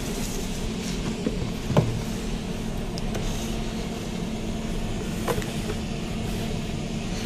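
A steady low mechanical hum, with a couple of faint taps as a cardboard box is handled.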